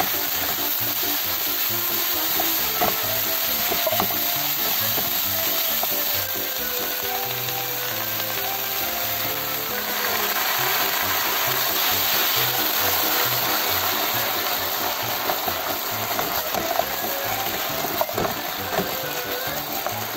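Pork, komatsuna and shimeji stir-fry sizzling in a frying pan while a wooden spatula stirs and scrapes through it, with a few sharp clicks of the spatula against the pan. Background music plays underneath.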